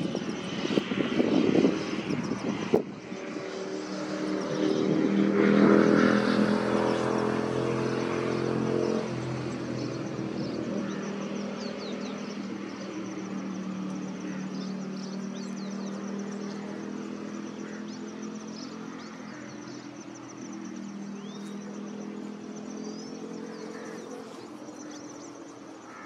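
Rough, gusty noise for about three seconds, ending abruptly. Then the steady drone of a passing aircraft engine swells to its loudest about six seconds in and slowly fades away. Faint high bird chirps sound over it.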